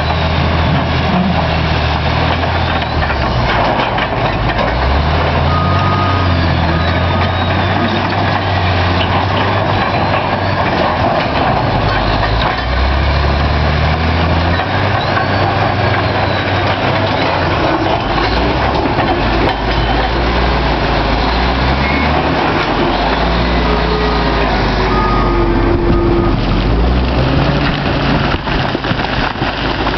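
Caterpillar D9T bulldozer's C18 diesel engine working, its note rising and falling with the load. A short beep sounds twice, about six seconds in and near the end.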